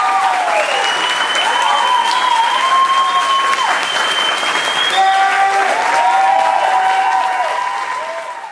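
Audience applauding, with cheering voices over the clapping; the applause fades out near the end.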